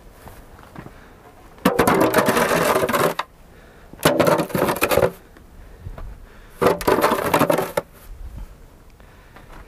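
Snow shovel pushed through deep snow, scraping along wooden boards in three strokes of about a second each.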